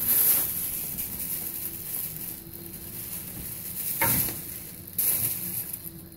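Treadmill running: a steady hiss with a faint low hum, swelling briefly at the start and again about four and five seconds in.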